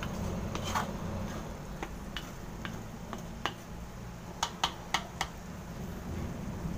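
Wooden spatula stirring ground pork in a wok and knocking against the pan, heard as scattered light clicks with a quick run of four sharp knocks about four and a half seconds in, over a low steady hum.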